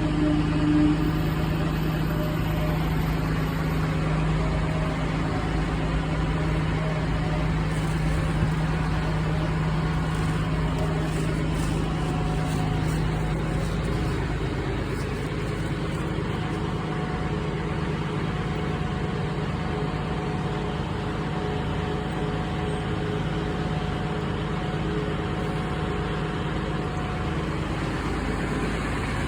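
Steady low mechanical drone with a humming tone that shifts about halfway through, which the uploader calls a weird sound and guesses comes from a bus.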